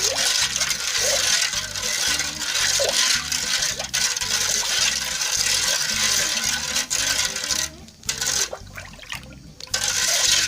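Coconut milk mixed with agar powder being stirred in a pot, a steady swishing of liquid that stops briefly twice near the end.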